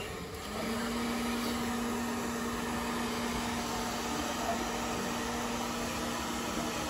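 Handheld electric hair dryer running, a steady hum with the rush of blown air, drying a puppy's fur. The sound drops out at the very start and comes back about half a second in, then holds steady.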